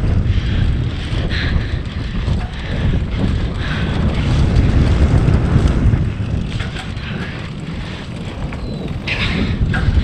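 Wind buffeting the microphone while a mountain bike rides fast down a dirt forest trail, with tyre noise on the dirt and occasional rattles from the bike over bumps.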